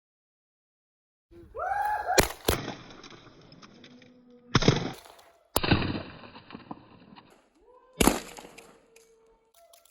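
Shotguns fired at flying pigeons: about five sharp shots over roughly six seconds, two of them in quick succession, each ringing out and fading. Short calls from the hunters come between the shots.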